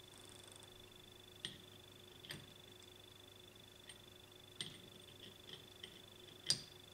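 Sharp, scattered clicks and knocks of hydraulic motor parts being handled during disassembly, about eight in all, the loudest near the end, over a faint steady high whine.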